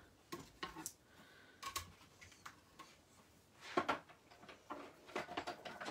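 Faint, scattered small clicks and taps as a thin metal cutting die and cardstock are handled and lined up by hand.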